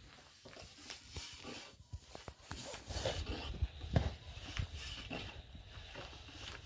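Scattered light wooden knocks and taps from a thin rolling pin working flatbread dough on a wooden board, with a heavier thud about four seconds in.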